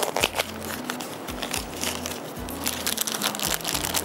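Background music with a steady low beat, over the crackly crinkling of a spice packet being opened and handled: dried fenugreek leaves (kasuri methi).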